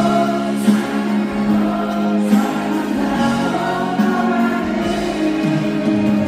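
Live orchestra and rock band playing a song's instrumental intro: sustained chords over a steadily held low note.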